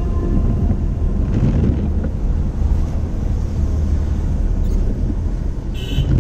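Car interior noise while driving on a wet road: a steady low rumble of engine and tyres with road hiss. A windscreen wiper makes a brief swish across the glass near the end.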